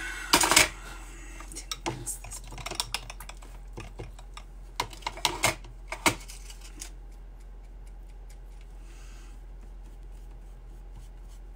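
Light clicks and taps from handling watercolour painting supplies. The loudest cluster comes about half a second in, followed by quick runs of clicks over the next few seconds, then the sound fades to faint rustling.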